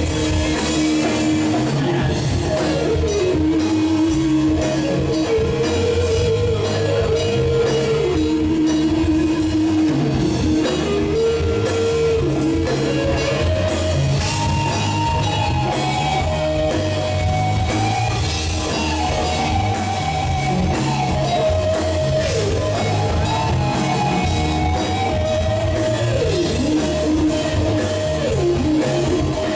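Live rock band playing, with a lead electric guitar solo on a Les Paul-style guitar carrying the melody in long, bending notes over drums and bass.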